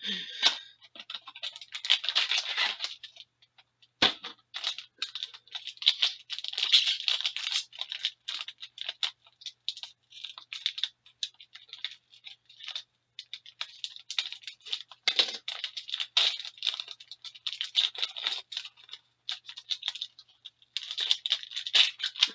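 Crinkling and tearing of a card box's plastic wrap and foil packs being opened by hand, in irregular crackling spurts with brief pauses. One sharp knock about four seconds in.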